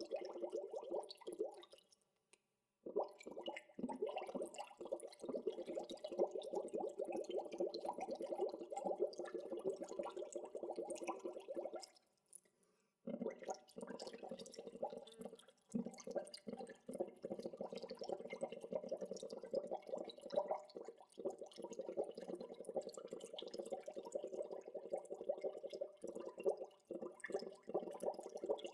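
Gentle bubbling water, a steady stream of many small bubbles popping and gurgling. It stops briefly about two seconds in and again about twelve seconds in.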